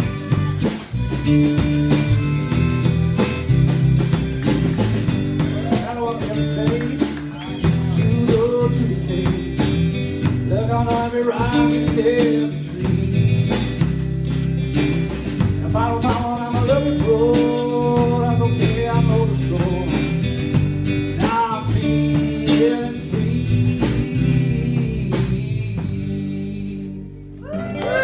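Live acoustic blues band: a harmonica plays over strummed acoustic guitars, electric bass and a drum kit. The song winds down and stops just before the end.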